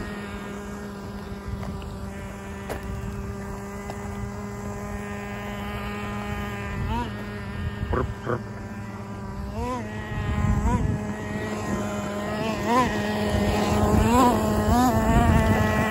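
Traxxas T-Maxx 2.5's small two-stroke nitro engine running at a steady pitch for the first several seconds, then revving in short repeated bursts that rise and fall, getting louder toward the end. Two sharp clicks about eight seconds in.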